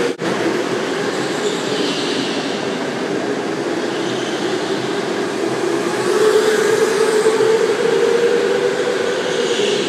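Go-karts running around an indoor track: a steady motor whine with a hiss above it, cutting out for a moment just after the start and growing louder about six seconds in as karts pass close.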